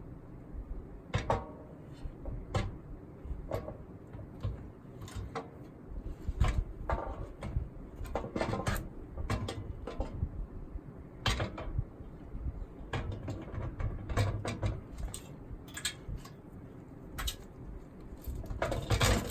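Irregular metal clunks and knocks as a Honda Africa Twin RD07 V-twin engine is manoeuvred into its bare frame, with a busier run of knocks near the end as it settles into place on its mounts.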